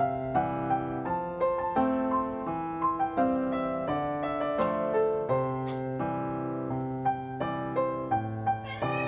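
Background music: a gentle piano melody over chords, with evenly paced notes.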